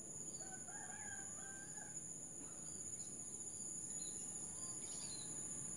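Steady high-pitched insect chirring, with a few short bird calls over it, the clearest about half a second to two seconds in.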